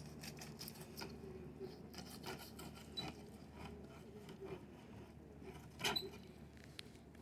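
Fillet knife slicing and scraping through a redfish's scaled skin and flesh: faint, scratchy rasping with scattered small clicks, one sharper click near the end. A low steady hum runs underneath.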